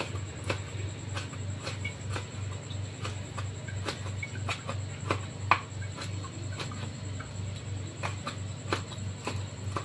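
Large kitchen knife chopping cooked pork large intestine on a cutting board: steady knocks of the blade on the board, about two a second, one a little louder about five and a half seconds in.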